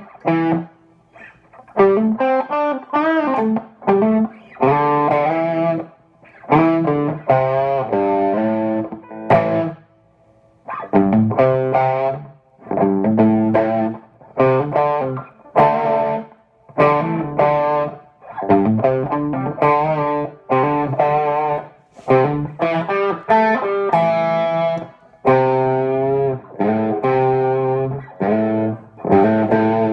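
Overdriven electric guitar: a Vogel Single Cut Jr. with a Seymour Duncan JB humbucker played through a Marshall JTM50-style valve amp. It plays loose chords and short riffs in phrases, with a brief pause about ten seconds in.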